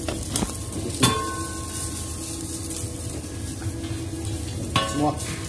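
Soupy seblak simmering in a wok over a gas burner while a wooden spatula stirs it. Two sharp clinks ring briefly, about a second in and near the end.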